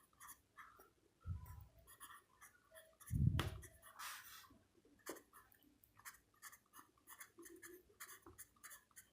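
0.5 mm lead of a Staedtler 777 mechanical pencil scratching across paper in many short writing strokes, with a dull thump about three seconds in.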